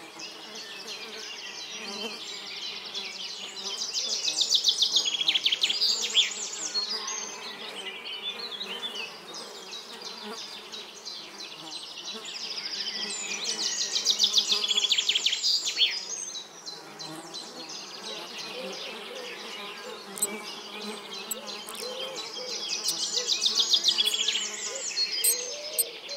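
Flying insects buzzing, a fast-fluttering high buzz that swells loud three times, about every nine seconds, and sinks back to a fainter buzz in between.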